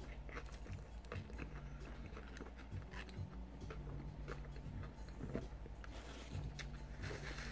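Close-up chewing of a mouthful of burger, with many small irregular wet mouth clicks, over a steady low hum.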